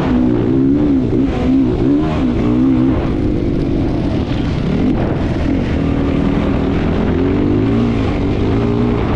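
Competition engine driven hard, close up: the revs rise and fall again and again, about every half second to a second, over steady rushing noise.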